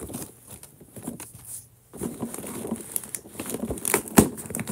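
Christmas wrapping paper rustling and crinkling as a wrapped box is pulled open, sparse at first and busier from about two seconds in, with one sharp knock near the end.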